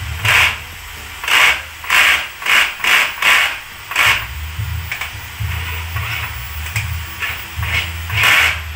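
Cordless drill driving a screw into a wooden stair handrail in a string of short trigger bursts, bunched in the first four seconds with one more near the end.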